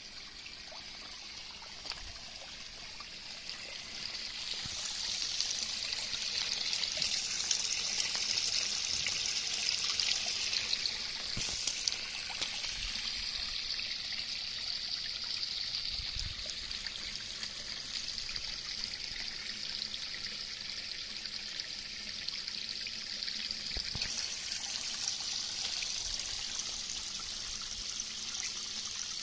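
Water from an Aquascape spillway bowl pouring over its lip into a garden pond: a steady splashing trickle, louder from about four seconds in.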